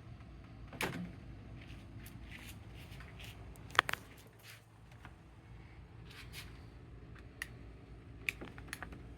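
EGO LM2110 cordless electric lawn mower making irregular sharp clicks over a low steady hum, the loudest a quick double click about four seconds in.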